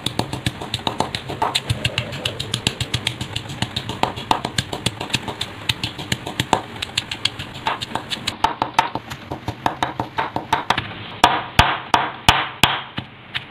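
Stone pestle pounding fresh and dried chillies, garlic, shallots and turmeric in a stone mortar for southern Thai sour curry (gaeng som) paste, with rapid steady thuds several times a second. Near the end the strikes become fewer, louder and sharper as the ingredients are crushed into a coarse paste.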